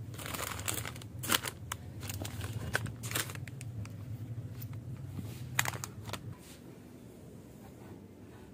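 Plastic-wrapped packets crinkling and clicking as they are handled and straightened on a shop shelf, with a few sharp crackles. A low hum underneath stops about six seconds in, leaving quieter handling noise.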